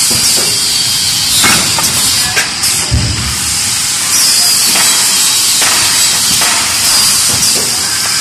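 DB-470PP plastic thermoforming machine running: a steady high hiss of compressed air with repeated mechanical knocks from its forming and cutting stations about once a second, and one heavier thump about three seconds in.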